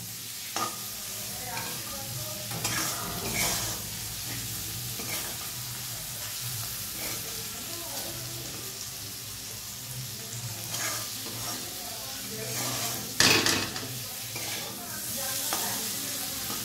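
Spiced elephant foot yam pieces frying in mustard oil in a metal kadhai, sizzling steadily while a flat metal spatula stirs and scrapes them against the pan. One louder clatter comes about 13 seconds in.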